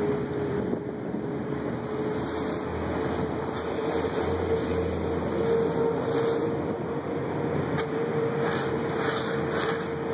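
Steady machinery hum holding one droning pitch over a rumbling background noise, with a low rumble swelling in the middle and a few faint scrapes near the end.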